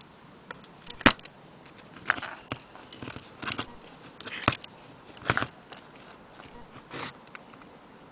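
Antique French mantel clock being handled: irregular sharp clicks and short scraping rattles, the sharpest clicks about one, two and four and a half seconds in.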